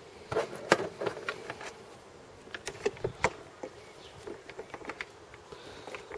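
Scattered light clicks and knocks of a USB cable plug and a phone being handled and pushed into the USB socket on a plastic battery box, over a faint steady buzz.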